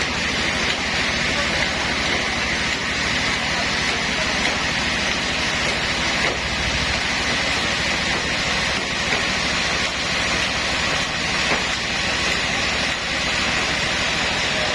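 Sawmill machinery running steadily, a continuous dense mechanical noise with no breaks.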